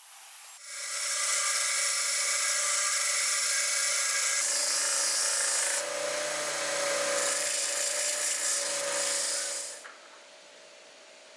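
Belt sander running, with a 6 mm bolt and connecting nut ground against the abrasive belt. The grinding changes a couple of times as the metal is worked, then cuts off near the end.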